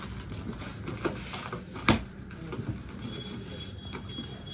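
Plastic wrapping and packing tape on a cardboard carton being pulled and torn open: crackling and rustling, with a sharp snap just before two seconds in.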